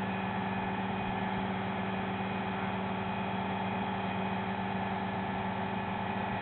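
Mobile crane's engine running at a steady speed with a constant hum while the crane holds a tower section on its hook.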